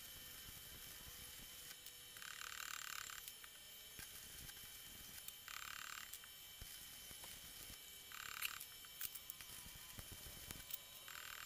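Stick (arc) welding on the end of a stone-crusher shaft during its repair: four short bursts of quiet arc crackle a few seconds apart, with a few light clicks between them.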